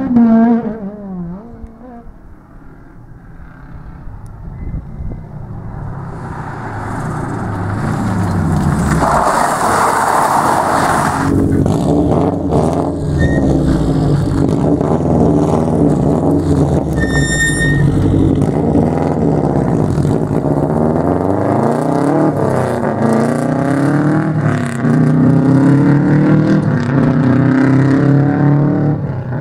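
A Subaru Impreza rally car's flat-four engine approaches under power. About ten seconds in there is a short rush of tyre and loose-surface noise as the car slides through a junction. It then accelerates hard away, the engine note climbing and dropping with each gear change.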